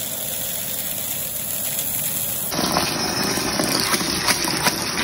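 Dry red lentils pouring into a plastic colander with a steady patter. About two and a half seconds in, a tap is turned on and water runs onto the lentils in the colander, rinsing them.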